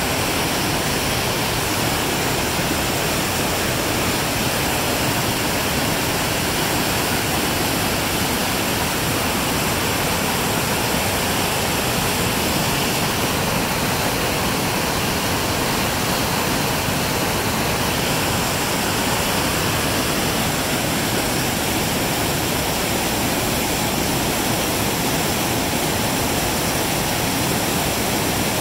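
Whitewater rapids rushing steadily over boulders and around fallen logs, a loud, unbroken sound of river water.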